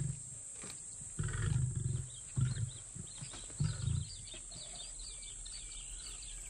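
Lions giving low, deep grunts: a longer one about a second in, then two short ones, with birds chirping faintly.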